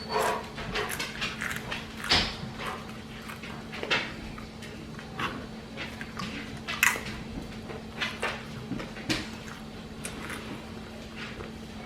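Close-up mouth sounds of eating: scattered wet chewing clicks and lip smacks over a steady low hum.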